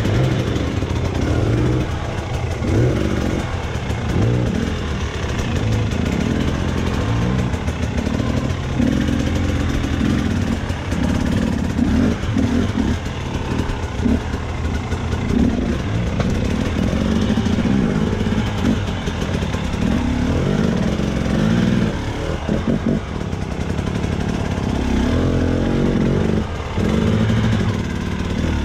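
Two-stroke Husqvarna enduro motorcycle engine running at low revs, the throttle blipped up and down every second or two as the bike crawls over rocks. The revs dip briefly near the end.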